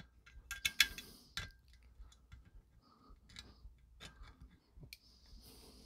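Faint irregular clicks and ticks of solid copper wire being bent into a hook loop against the metal jaws of a wire stripper, sharpest under a second in and again at about a second and a half.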